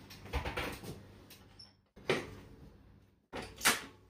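Clunks and rattles of a mountain bike being handled and moved about, in three short bursts, each cut off abruptly. The loudest is a sharp clank about three and a half seconds in.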